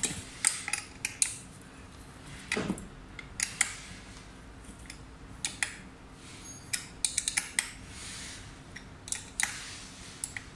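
Irregular sharp metallic clicks and clinks as a small hand tool works a bolt at the folding joint of an electric scooter's stem, with one short falling scrape about two and a half seconds in.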